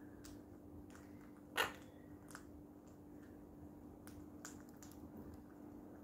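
Quaker parrots crunching dry pellets in their beaks: scattered small sharp cracks, with one louder crack about one and a half seconds in, over a faint steady hum.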